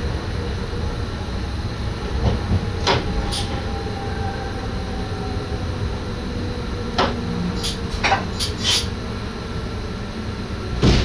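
Cab of an NS SGM Sprinter electric train: a steady low running rumble, with sharp knocks and rattles scattered through it, several of them close together.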